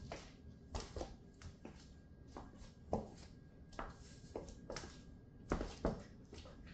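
Stiletto heels and boot soles tapping and clicking on a hard floor as the wearer steps and shifts her weight: a dozen or so irregular taps, the sharpest about three seconds in and two more close together near six seconds.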